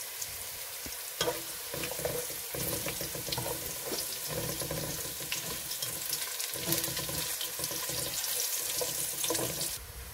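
Whole spices and golden-browned onions frying in hot oil in a cooking pot, sizzling steadily, with stirring and scraping in the pot from about a second in.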